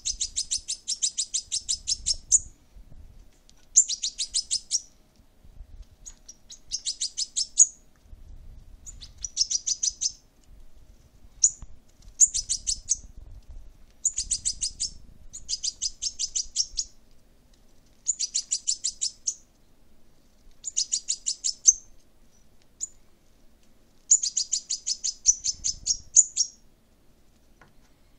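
Fledgling European goldfinch giving begging calls while being hand-fed: bursts of rapid, high chirps, each about a second long, repeated every one to two seconds.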